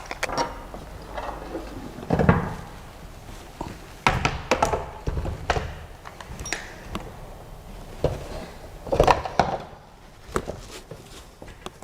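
Handling of the printer's parts and packaging: irregular knocks, clicks and thuds of hard pieces being moved and set down, loudest about two seconds in and again about nine seconds in.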